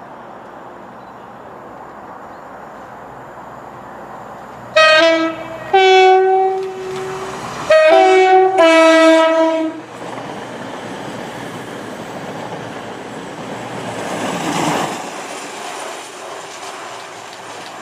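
CrossCountry Class 220 Voyager sounding its two-tone horn, four blasts alternating high and low notes, then running through the station, its rumble and wheel noise swelling to a peak a few seconds later and fading as it passes.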